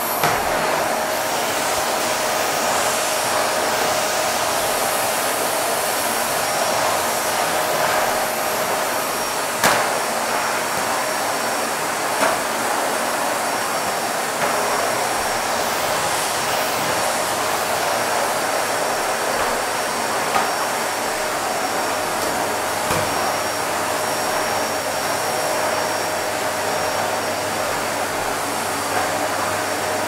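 Vacuum cleaner running steadily: a constant rush of air with a faint steady hum, broken a few times by brief light clicks.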